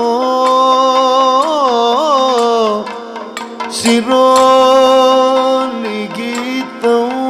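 Male voice singing a slow, ornamented Indian classical devotional melody over a steady drone. The voice falls away about three seconds in, then comes back on a long held note.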